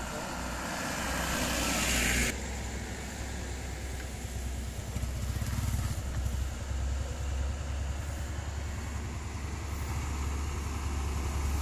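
Traffic passing close: a light box truck's road noise and hiss that stops abruptly about two seconds in, a motorcycle going by a few seconds later, then a heavy Hino 500 truck's diesel engine pulling uphill, its low hum growing louder as it approaches.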